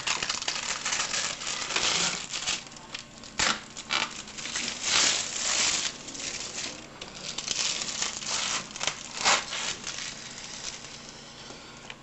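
Clear plastic film being peeled off a frozen TV dinner's plastic tray and crumpled by hand: irregular crinkling and crackling with many sharp clicks.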